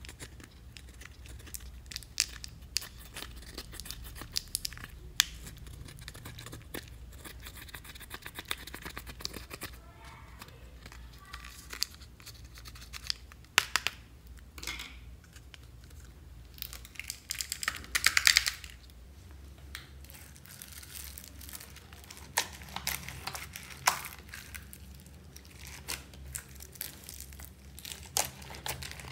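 Fingers crumbling and scraping pressed eyeshadow powder in a hard plastic makeup palette: a run of small crackles and clicks, with a louder crackling burst of about a second roughly two-thirds of the way through. Near the end, hands squish slime.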